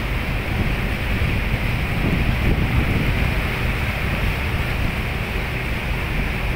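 Steady wind rushing on the microphone over the sea, with a low engine drone from a ship underneath.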